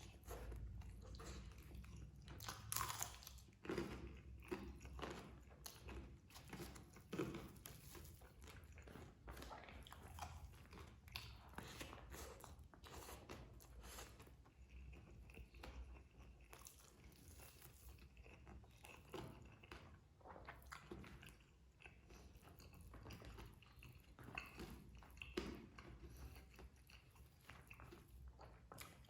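A person chewing and biting food close to the microphone: a plate of nasi padang, rice with side dishes. The sound is a steady run of irregular soft clicks, smacks and crunchy bites.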